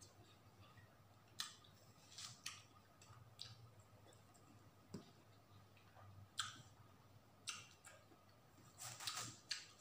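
Quiet, scattered short clicks and wet smacks of a person eating watermelon, with a knife cutting into the melon and a small cluster of clicks near the end.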